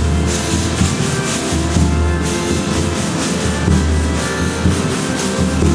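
Folia de Reis folk ensemble playing, with string instruments and steady percussion.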